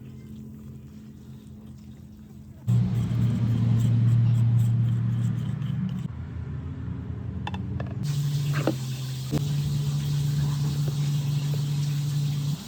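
A small electric motor running in steady stretches, its pitch shifting abruptly a few times, with a few sharp clicks about 8 to 9 seconds in. Before it starts, about 3 seconds in, there is only a low hum.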